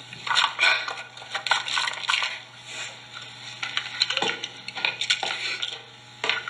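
A film soundtrack played over a hall's loudspeakers: an irregular run of small clicks, clatters and crackling rustles, as of crockery and pill packets being handled, over a steady low hum.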